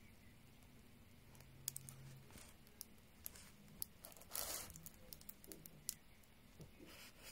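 Faint crinkling and rustling of a plastic-covered diamond painting canvas being handled, with a few light clicks and one short louder rustle about four and a half seconds in.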